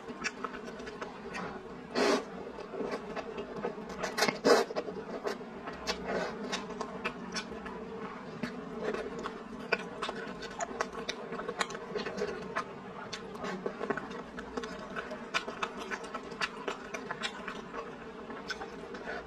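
Close-miked eating of instant noodles: a loud slurp of noodles about two seconds in and another about four seconds in, then steady chewing with many small wet mouth clicks and chopstick taps. A steady low hum runs underneath.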